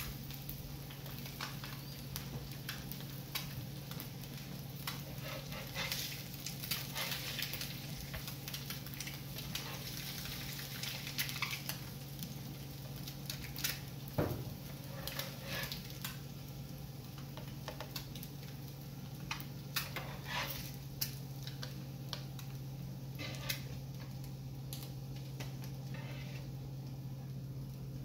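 Fried eggs sizzling on an electric griddle, with a spatula and fork scraping and clicking against the griddle and a plate, the sharpest click about halfway through. A steady low hum runs underneath.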